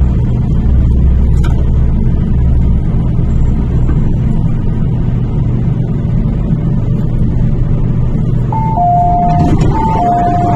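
Inside an MTR K-Train electric multiple unit coming to a stop: the low running rumble dies away about four seconds in, leaving a steady cabin hum. Near the end a two-tone electronic door chime sounds, alternating high and low notes.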